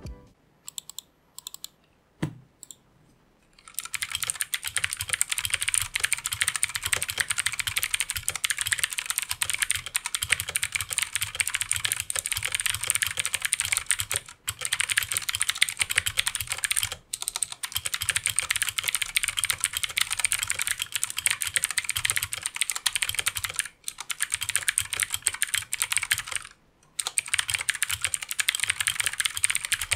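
Typing on an Armageddon MKA-5R mechanical keyboard with clicky blue switches. A few single keystrokes come first, then fast continuous typing with a few short pauses.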